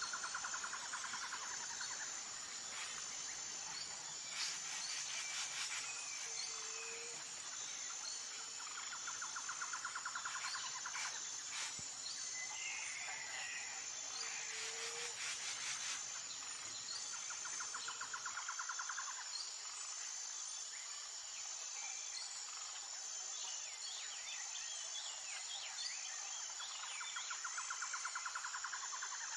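Insects and birds calling: a steady, high, pulsing chirp throughout, a buzzing trill that comes back about every nine seconds, and a few short calls.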